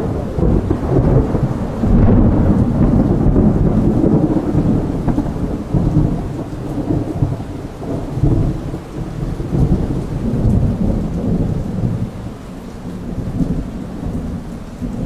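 Thunderstorm: rain with continuous rolling thunder rumbles that start abruptly, are loudest in the first few seconds and ease off near the end.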